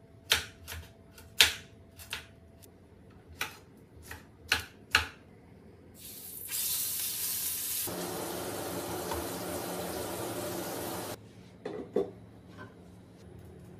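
Knife chopping on a wooden cutting board, about eight sharp chops in the first five seconds. Then a loud, steady sizzle from a hot pan on the stove, lasting about five seconds and cutting off suddenly, followed by a couple of light knocks.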